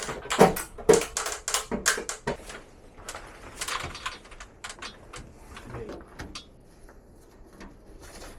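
A run of clicks and knocks from hard objects being handled, close together for the first few seconds, then sparser and fainter.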